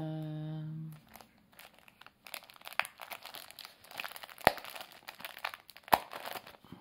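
Clear plastic cellophane sleeve crinkling and crackling as paper border strips are pulled out of it, in irregular rustles with a few sharper clicks, starting about a second and a half in.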